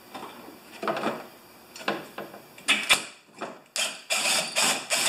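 Cordless drill-driver running in short spurts to drive small carburetor mounting bolts. There are three brief runs in the first three seconds, the third the loudest, then a longer run near the end.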